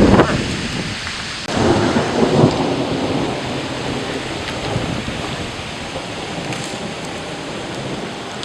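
Rain and wind of a severe thunderstorm, a steady noise, with a louder surge about one and a half seconds in that dies back within about a second.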